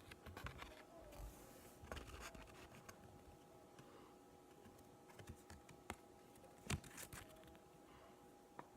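Near silence with faint, scattered clicks and scratches of trading cards being handled, the most distinct a few seconds in, over a low steady hum.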